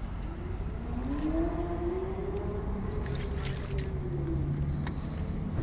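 Car engines running at low speed as cars drive in, a steady low rumble with one engine note that slowly rises and falls back over about four seconds.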